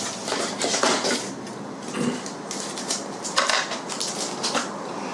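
Masking tape being pulled from the roll and pressed onto a Depron foam sheet: irregular short rasping strokes mixed with light clicks and clatter from handling.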